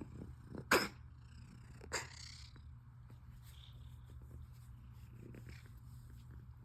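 A cat purring steadily, broken by two short, sharp coughs about a second and two seconds in, the first louder. It is a cough that has not improved after three days of azithromycin.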